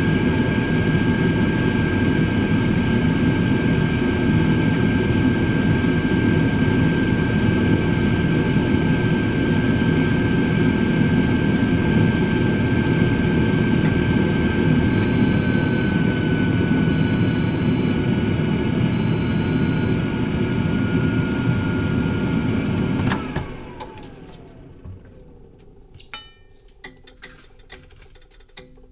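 Cosori air fryer oven's fan running steadily with a whine, then three long beeps, the end-of-cooking alert. About 23 seconds in, the fan shuts off and winds down with a falling whine, leaving faint ticking and crackling from the hot food and oven.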